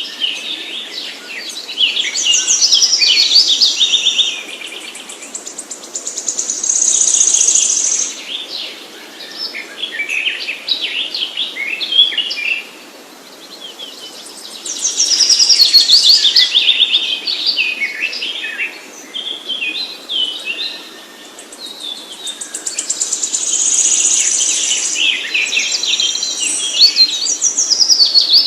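A songbird singing long, varied phrases of rapid high chirps and trills, with a similar pattern returning about every twelve seconds.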